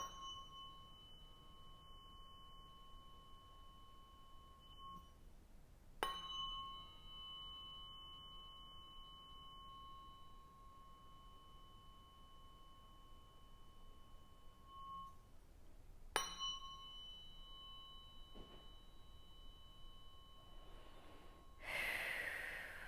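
Tuning fork struck three times, each strike ringing on as a clear pure tone with a higher overtone and slowly fading over several seconds. A brief rushing hiss comes near the end.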